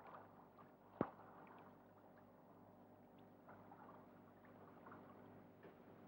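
Near silence: faint water ambience around a boat at sea, with one sharp click about a second in.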